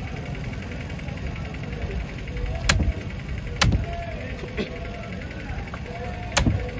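A heavy cleaver chopping through a large fish into a wooden log chopping block: four sharp chops, the first about two and a half seconds in, roughly a second apart with a longer gap before the last, over a steady low background rumble.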